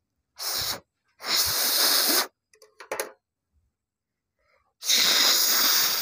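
Breath blown out hard in three puffs: a short one, then a long blow about a second in and another long one near the end, with a few small clicks between.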